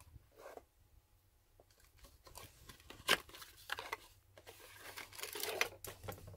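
Cardboard box being opened by hand: faint rustling and scraping of paperboard flaps, with a sharp click about three seconds in and denser rustling near the end as a spin-on fuel filter is pulled out.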